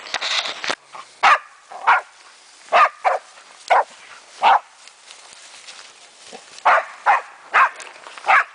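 German Wachtelhund barking at a raccoon dog it has found: about ten short barks, some single and some in quick pairs, at uneven intervals, after a rustle of brush in the first second.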